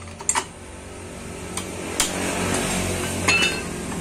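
Hand tools clinking against the clutch nut of a Honda Vario 125's CVT as a socket wrench and pulley holder are fitted and worked on it: a few sharp metal clinks, one just after the start, two around the middle and a quick cluster past three seconds. Under them runs a steady low hum that grows louder.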